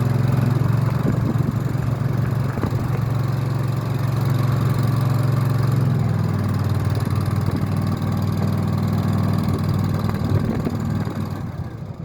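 Skid steer loader engine running steadily, its note shifting slightly about halfway through, then dying away near the end.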